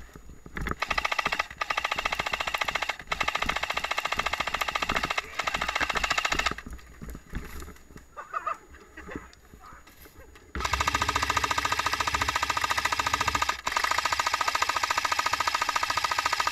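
Airsoft electric machine gun with a box magazine firing long full-auto bursts: a rapid, even rattle of the gun cycling. It fires in bursts with short breaks for about six seconds, stops for about four, then fires almost without a break to the end.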